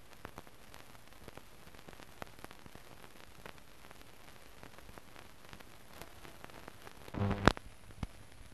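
Steady faint hiss with scattered crackles and clicks, the noise floor of a silent archive film transfer. About seven seconds in, a brief, much louder burst breaks in.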